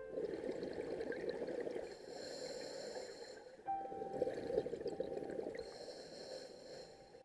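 Scuba diver's exhaled bubbles from a regulator, heard underwater: two long bubbling exhalations, the second starting abruptly about halfway through.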